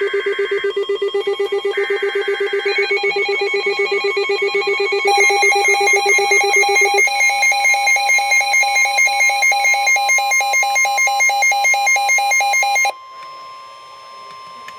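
Layered electronic alert tones, several pitches pulsing together in a fast trill several times a second, ahead of a severe thunderstorm warning. More tones join about five seconds in, the pattern shifts around seven seconds, and the tones cut off abruptly near the end.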